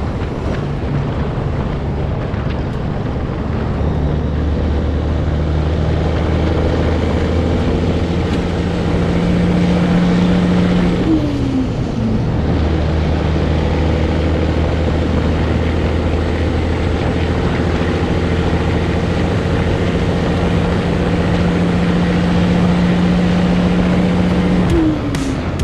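Caterpillar diesel engine of a Peterbilt 362 cabover truck running steadily under load on the road. The engine note breaks briefly about twelve seconds in and again near the end, as gears are changed.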